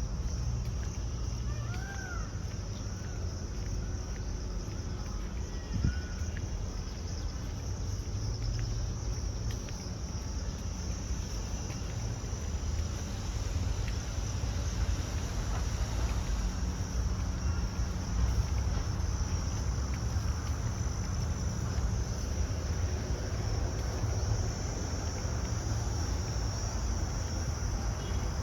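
Steady, high-pitched chorus of insects, with a low rumble underneath and a few short bird chirps a few seconds in.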